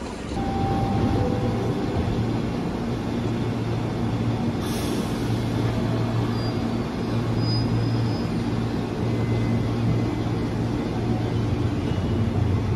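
KRL Commuterline electric commuter train standing at the platform, its onboard equipment giving a steady low hum, with a short hiss about four and a half seconds in.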